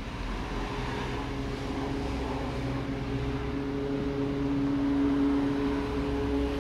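A steady engine drone: low rumble with a few held hum tones that come in during the first second and grow slightly louder over the next few seconds.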